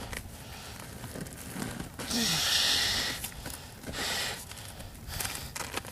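A man straining with effort: short grunts and two hard, hissing exhalations, the first and louder about two seconds in, the second about a second later, over low rustling of a seat cover being pulled.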